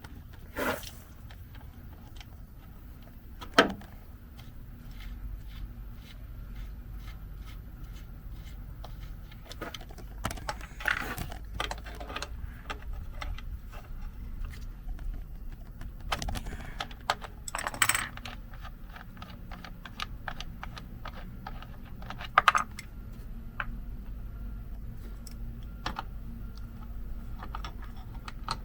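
Metal hand tools clinking, scraping and knocking on metal hardware while the truck's battery box is opened and the battery cables are worked loose: a run of irregular small clicks with a few louder clanks, one a few seconds in and two close together past the middle.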